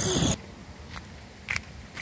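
A short rush of noise at the start, then a few soft knocks about half a second apart: footsteps on asphalt.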